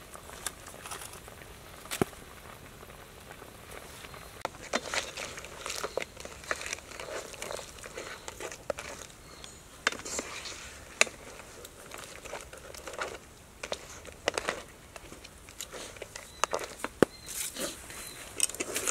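Crabs and vegetables cooking in a steaming wok, stirred with a wooden spatula: scattered clicks and knocks of the spatula against crab shells and the pan over a light crackle.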